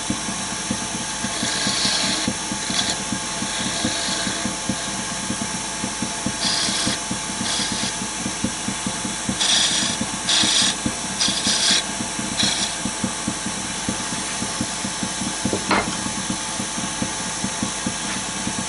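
Wood lathe running with a spindle gouge cutting into the spinning wood: short bursts of scraping shavings over the steady hum of the lathe, as the gouge roughs out a turned chess piece. A single sharp click comes about three-quarters of the way through.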